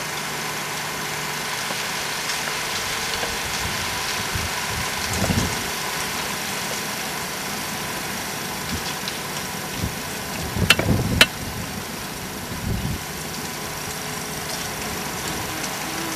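A vehicle engine running steadily, with a few low knocks and two sharp clicks a little over halfway.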